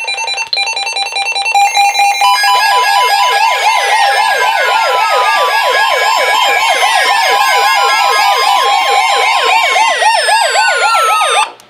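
Loud electronic emergency alert siren: a fast warbling wail with steady alert tones and slow falling sweeps layered under it, preceded by about two seconds of rapidly pulsing tones. It cuts off abruptly near the end, signalling an emergency alert ahead of a severe thunderstorm warning broadcast.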